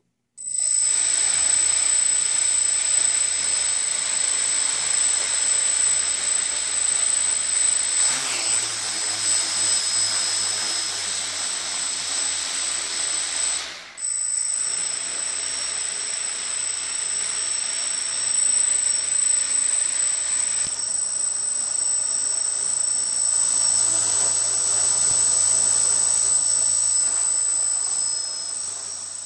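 Four brushless motors of an Aerosky H100 quadcopter spinning 10-inch propellers in a ground test, a steady rush of propeller air with a high whine over it. The motor note shifts several times as the sticks are moved, and there is a brief dip about halfway through.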